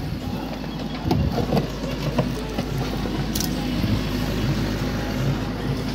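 Heavy diesel machinery engine running steadily, with a short cluster of low thuds about a second in.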